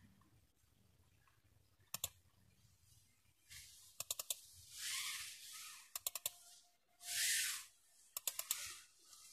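Computer mouse buttons clicking in quick double-clicks every couple of seconds, with a few short bursts of hiss in between.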